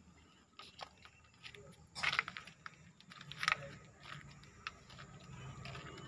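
Footsteps crunching on gravelly dirt, a few uneven crunches and clicks with the loudest about two seconds in and again about three and a half seconds in, over a faint low hum.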